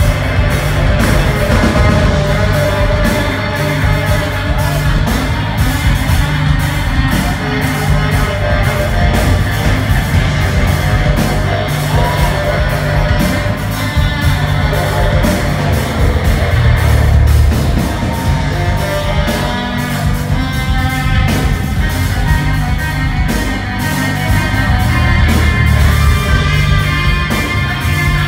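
Live band playing loud funk-rock, with a baritone saxophone soloing over bass, drums and cymbals.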